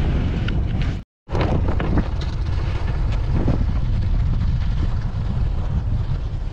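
Strong blizzard wind buffeting the microphone: a loud, rough, steady rumble. It cuts out completely for a moment about a second in, then returns unchanged.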